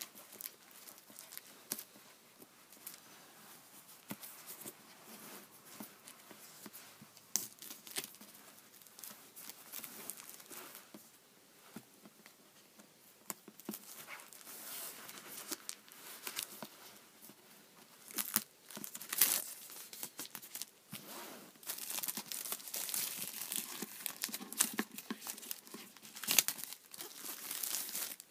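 Clear plastic shrink-wrap being picked at, torn and peeled off a cardboard DVD box set, with irregular crinkling and crackling. The crinkling grows louder and busier about two-thirds of the way through, with sharp tearing crackles.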